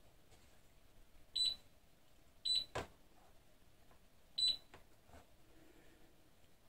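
Anycubic Photon Mono's touchscreen beeping as its buttons are pressed to set the Z-axis zero point: three short high beeps spread over about three seconds. A light knock comes just after the second beep.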